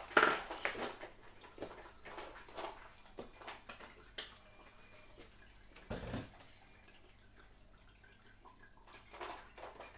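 Light clinks and knocks of crockery and utensils being handled at a kitchen counter. There is a duller thump about six seconds in.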